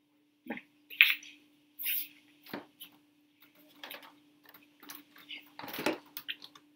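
Pages of a large paperback picture book being handled and turned: paper rustling and crinkling in short irregular bursts, with a couple of soft knocks, over a faint steady hum.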